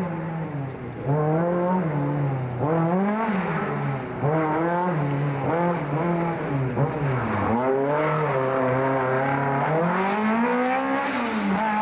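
Toyota MR2 AW11's engine revving hard and backing off over and over as the car is driven through an autocross course. The pitch climbs and drops every second or so, with a longer climb near the end.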